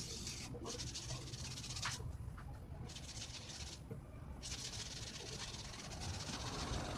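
Hand rubbing paint onto a styrofoam board: scratchy swishing strokes in several stretches with short pauses between, over a low steady hum.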